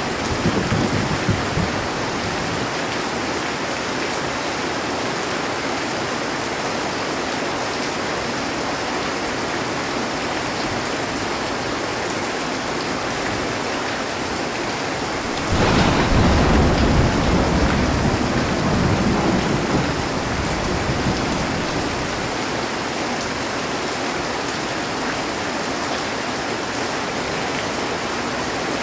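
Heavy rain falling steadily on a metal roof. Thunder breaks suddenly about halfway through and rumbles off over several seconds, and the tail of an earlier rumble fades in the first second or two.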